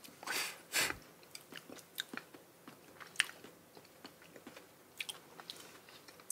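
Close-up chewing of soft Monthong durian flesh: faint wet mouth clicks and smacks, with two louder short rushing sounds in the first second.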